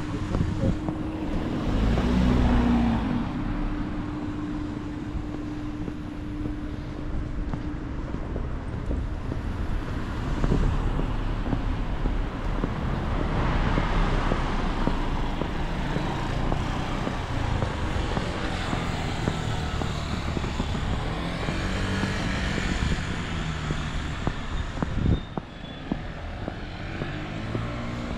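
Passing vehicle noise: a low engine-and-road rumble that swells and fades twice.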